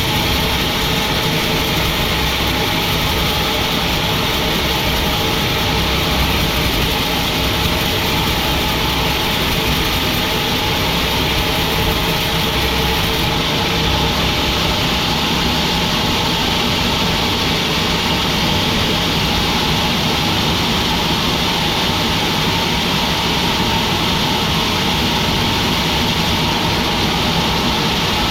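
Sawmill machinery running steadily: a loud, even engine drone with no let-up and no separate strikes.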